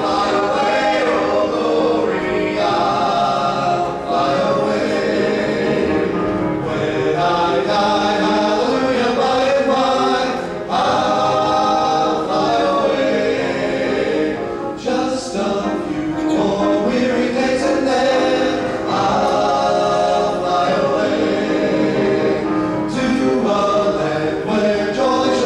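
Male southern gospel quartet singing old gospel hymns in close harmony into microphones, with piano accompaniment.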